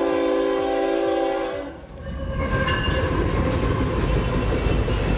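A train horn sounds a held chord of several notes for about two seconds, then the low, steady rumble of the train rolling past takes over.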